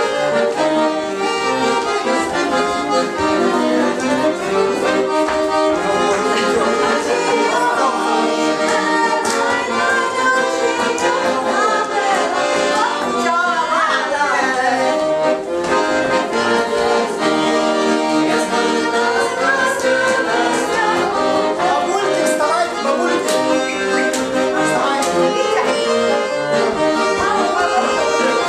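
Instrumental music with sustained chords and a melody line, steady and loud throughout.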